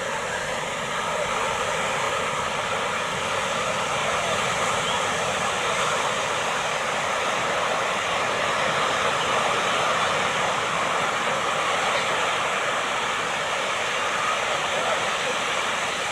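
Ocean surf breaking and washing up the shore: a steady rush of noise that does not let up.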